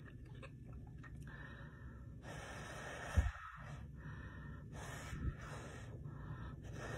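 Heavy breaths in and out close to the microphone while eating a sausage, in several long rushes, with soft low knocks about three seconds and five seconds in.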